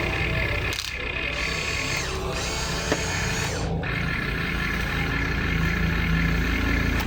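Small electric motors and plastic gearboxes whirring steadily, as in a toy RC construction vehicle, with a single sharp click about three seconds in.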